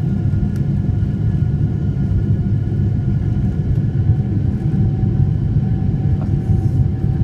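Boeing 747 jet engines running, heard from inside the cabin as the airliner rolls along the runway: a steady deep rumble with a faint steady whine over it.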